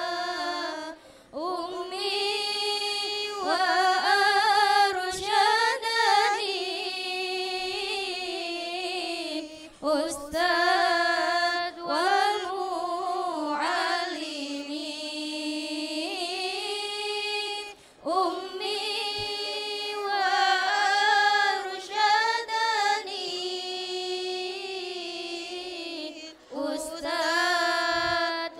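Young women singing a lalaran, the sung chanting of Islamic verse texts, into microphones. The chant is melodic and comes in long phrases with short breaks between them.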